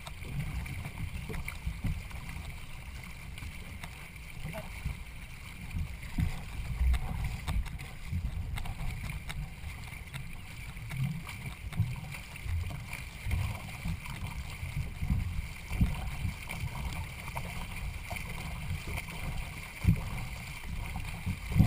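Boat and water noise on the move, with wind rumbling unevenly on the microphone.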